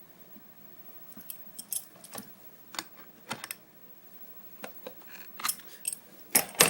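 Small metal objects handled by hand: scattered light metallic clicks and clinks, coming closer together and loudest near the end.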